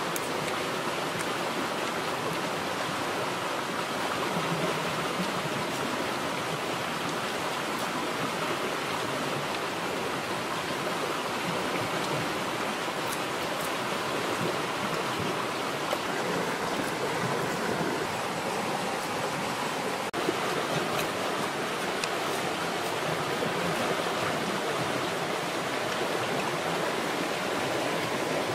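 Steady rushing noise, like running water, with a few faint clicks.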